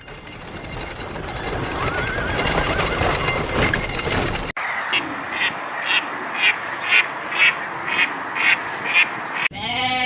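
A duck quacking over and over, about two quacks a second, after a cut from a few seconds of a noisier, busier animal recording. Near the end a goat starts bleating.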